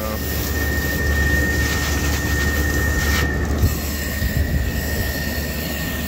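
Garden hose spray nozzle jetting water onto an air conditioner's outdoor condenser coil to rinse it clean: a steady hiss of spray over a steady low rumble.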